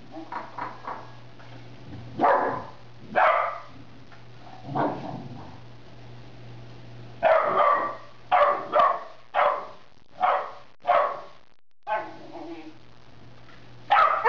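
Dogs squabbling over a food bowl: a Rhodesian Ridgeback puppy barks in short bursts at a dog that is eating, about a dozen barks with a quick run of them about halfway through. Under the barks runs a steady low growl from the eating dog, a show of guarding its food.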